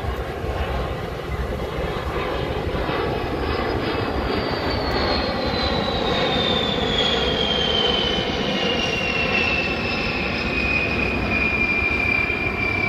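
Boeing B-52 bomber's eight jet engines as it flies past: a broad rumble with a high whine that falls steadily in pitch as the aircraft goes by.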